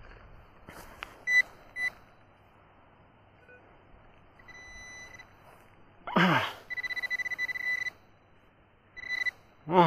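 Handheld metal-detecting pinpointer beeping at one steady high pitch as it is probed through loosened soil. It gives a few short beeps, a longer tone and then a fast run of pulsed beeps lasting about a second as it closes on a buried metal target, a coin. A brief falling vocal sound from the man comes just before the fast beeping, and another voice sound at the very end.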